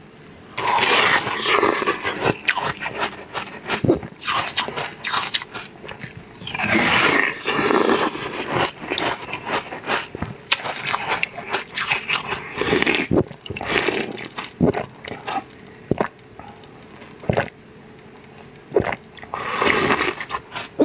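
Close-up eating sounds of a napa-cabbage-shaped ice cake being bitten and chewed: several bouts of crackly biting and chewing with short pauses between.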